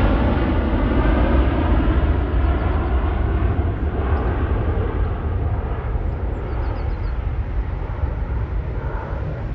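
Jet engines of a twin-engine widebody airliner climbing away after takeoff. It is a deep, steady roar that fades slowly as the aircraft recedes, and its higher part thins out first.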